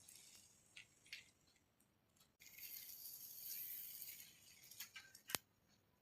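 Faint rustling from about two and a half seconds in to past four seconds, with a few light clicks, the sharpest one near the end.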